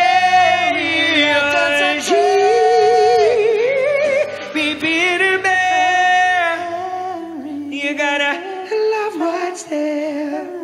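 A man's voice singing without words: long held high notes, one with wide vibrato, then shorter, quieter phrases in the second half, over a faint electric guitar accompaniment.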